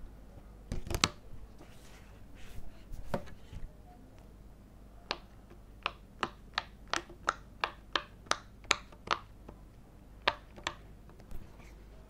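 Rainbow silicone dinosaur-shaped pop-it fidget toy, a finger pressing its bubbles one after another so each gives a sharp pop, about three pops a second for several seconds, with a few more after. Near the start come a few louder knocks from the toy being handled.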